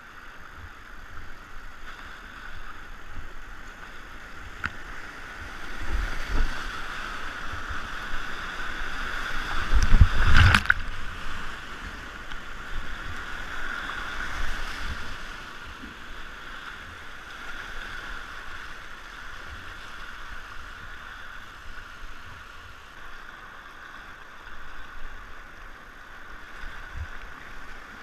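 Whitewater rapids rushing and splashing around a kayak's bow as it runs through a rapid. Heavier splashes hit about six seconds in and again, loudest, around ten seconds, with a sharp knock of water against the boat.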